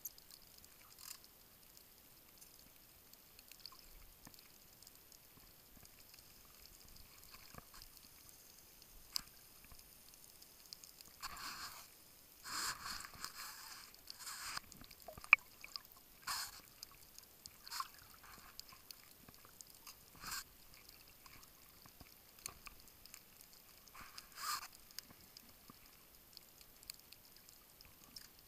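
Muffled water noise heard through an underwater camera just below the surface: a faint steady hiss, broken by a cluster of short sloshing, gurgling bursts around the middle, a few more later, and one sharp click.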